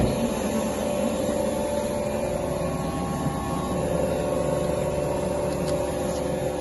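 Vacuum pump of a VC999 K6 chamber vacuum-packaging machine running with a steady, even hum, with a single sharp knock right at the start.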